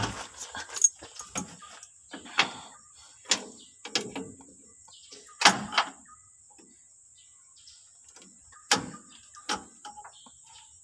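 Irregular sharp metallic clicks and knocks, a dozen or so, as a Toyota Hilux parking brake cable and its fittings are handled and worked into place under the truck. The loudest pair comes about halfway through.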